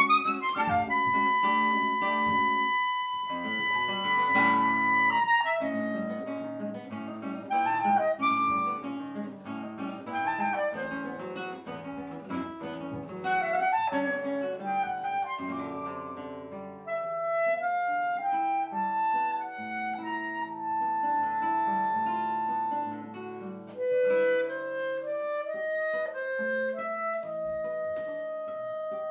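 Clarinet and classical guitar playing a fast duet: quick plucked guitar notes under a clarinet line that moves rapidly and holds some long notes.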